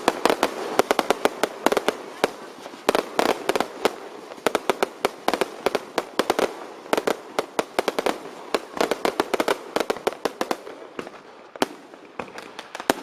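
Cart-mounted fireworks and firecrackers going off in a dense, irregular run of sharp cracks, several a second, thinning out near the end.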